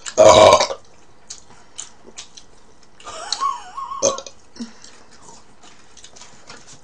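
A loud burp about a quarter of a second in, then quiet eating sounds with small clicks, and a brief wavering hum of the voice around three seconds in.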